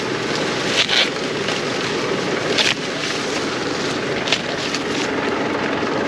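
Sweet corn being picked by hand: corn leaves and husks rustling, with a few sharp snaps as ears are broken off the stalks, over a steady rushing noise.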